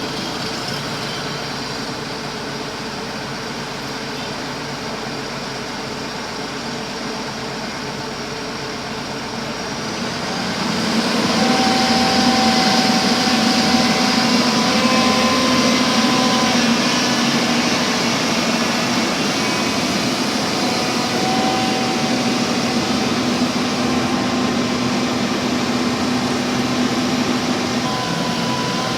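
Backhoe diesel engine running steadily, then getting louder about ten seconds in as it comes up in revs, with a steady whine over it that holds for the rest of the time.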